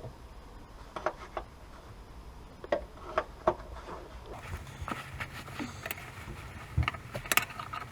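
Scattered clicks and metallic clinks of hand tools and loose bolts being handled, coming more often in the second half.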